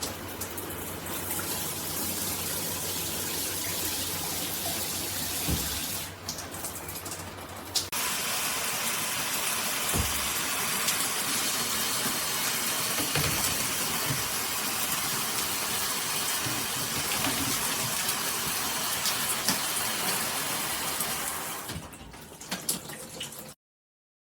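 Delta In2ition dual shower head spraying water into a bathtub, a steady rushing hiss. It eases off briefly about six seconds in, comes back stronger, drops again near the end, then cuts off suddenly.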